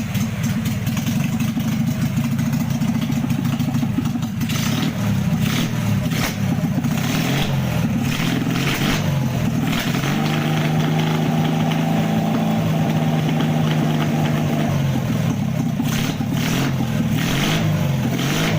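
Kawasaki Vulcan 550cc motorcycle engine, freshly converted from points to CDI ignition, running on a test and being revved up and down by the throttle several times. It holds a higher, steady speed for several seconds in the middle before dropping back and revving again.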